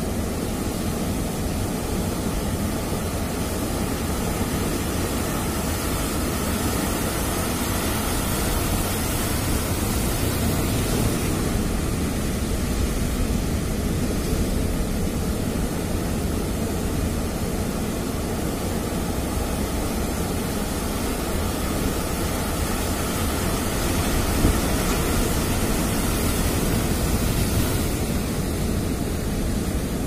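Heavy ocean surf breaking and washing over a rocky shore: a steady roar of crashing waves and foam that swells and eases as the sets come in.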